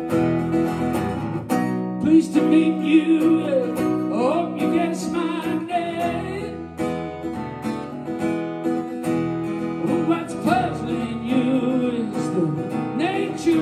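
Acoustic guitar strummed with a man singing over it: a live solo song.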